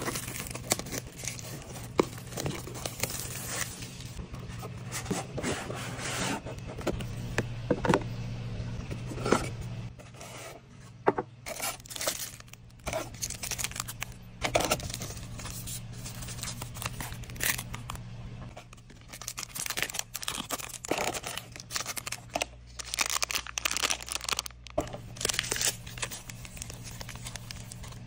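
Plastic shrink wrap being torn off a cardboard trading-card box, then plastic-wrapped card sleeves and foil booster packs handled: irregular tearing, crinkling and rustling with sharp crackles throughout.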